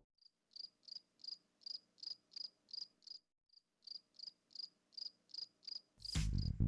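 Cricket chirping: short high chirps about three a second, in two runs with a brief pause about three seconds in. A loud burst of sound breaks in near the end.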